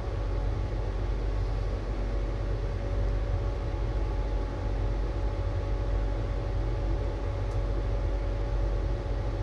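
Steady machine hum and hiss, with a low drone and a faint constant whine over it.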